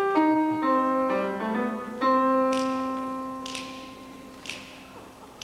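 Piano plays a short run of notes stepping downward, then a chord that rings and slowly fades. From about two and a half seconds in, finger snaps mark the beat about once a second.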